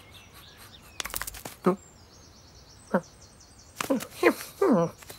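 Cartoon cat's human-made voice sounds: a few quick sniffs and several short vocal noises that fall in pitch, the last one longer and wavering. Faint birdsong sits behind them.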